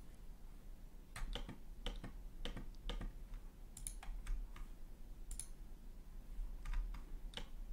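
Computer keyboard and mouse clicks: a dozen or so separate, irregularly spaced clicks while working at a computer.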